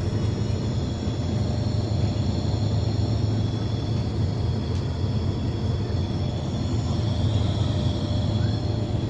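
Air conditioner unit running with a steady low hum and a faint high whine, unchanging throughout.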